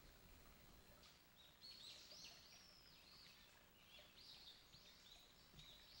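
Male blue-and-white flycatcher singing faintly: a run of quick, clear high whistled notes starting about a second and a half in, then a second run after a short pause near the middle.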